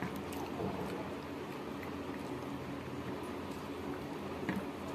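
Fingers mixing rice with sinki soup on a steel plate: faint wet squishing with a few light clicks, over a steady low hum.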